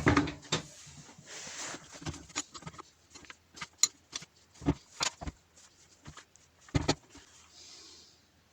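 Irregular knocks, clicks and short scrapes of steel parts, bolts and hand tools being handled while a steel mounting bracket is fitted.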